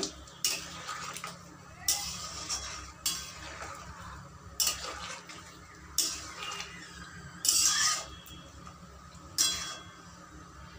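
Metal spoon stirring star fruit pieces in a watery turmeric mixture in a kadai, scraping the pan in separate strokes about every one to two seconds.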